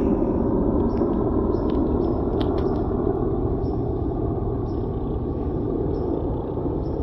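Helicopter flying past overhead, a steady rotor-and-engine rumble that slowly fades as it moves away.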